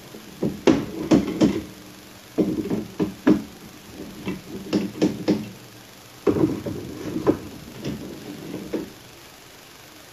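Screwdriver backing screws out of a metal computer case. Handling clicks, knocks and clinks of the screws and the case cover come in four short bursts with quieter gaps between.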